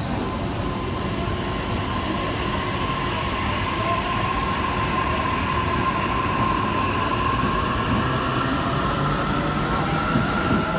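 Electric train moving alongside a station platform: a steady running rumble with a high whine that drifts slowly in pitch.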